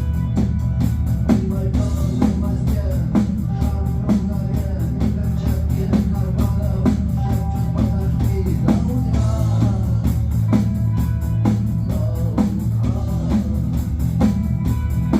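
Rock music: guitar and drum kit playing a steady beat over a full bass.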